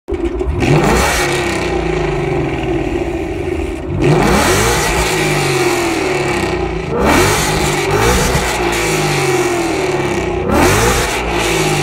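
Ford Mustang GT's naturally aspirated 5.0 Coyote V8, fitted with catted long-tube headers and a Corsa Extreme cat-back exhaust, revved sharply from idle four times, each rev climbing quickly and dropping back to idle.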